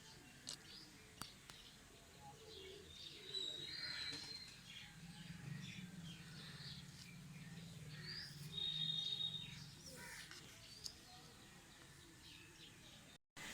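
Faint birds chirping and calling, with two short held whistled notes. A low hum runs under them from about five to ten seconds in, and there are a few small clicks.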